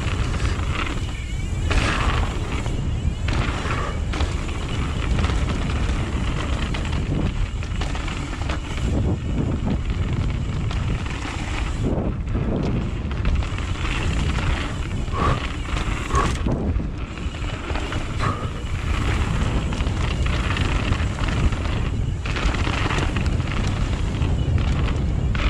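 Mountain bike ride down a dirt trail: a steady low rumble of wind on the microphone and tyre noise, broken by scattered short knocks and clatters as the bike goes over bumps.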